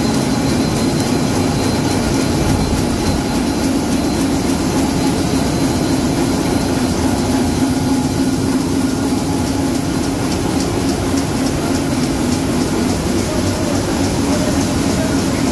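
Komori Lithrone L-440 four-colour sheetfed offset press running: a loud, steady mechanical drone with a strong low hum that holds even throughout.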